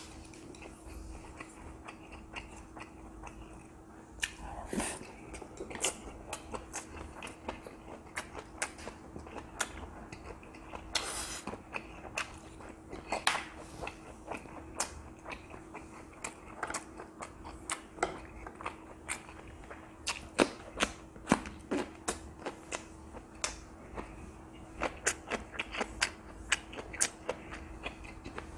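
A person chewing a mouthful of food close to the microphone: many small wet mouth clicks and smacks, coming thicker near the end, over a faint steady hum.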